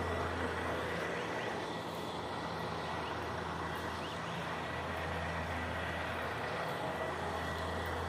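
Steady mechanical drone: a constant low hum with a thin high tone over a noisy rush, unchanging throughout.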